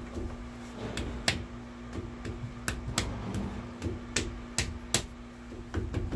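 Sharp metallic clicks and taps, about a dozen at irregular intervals, as a steel cylinder sleeve with its piston is handled and set down into the bore of a Detroit Diesel 6-71 block while the connecting rod is lined up.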